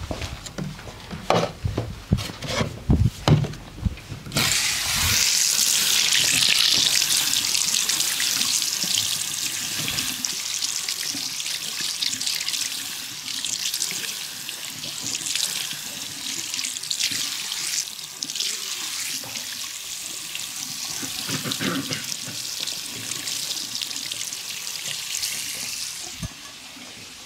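A quick series of sharp knocks, then water running steadily from a tap for about twenty seconds, stopping near the end.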